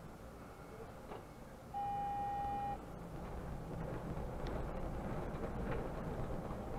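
Mercedes-Benz Conecto city bus heard from the driver's seat: a steady electronic beep lasting about a second, about two seconds in, over the bus's running hum. From about three seconds in, the engine and road noise grow louder as the bus gathers speed.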